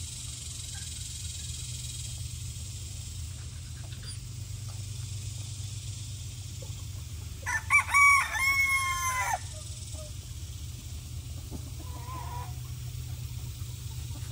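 A rooster crowing once, about halfway through: a few short rising notes, then a long held note that drops away at the end, about two seconds in all. A fainter call comes a few seconds later, over a steady low rumble.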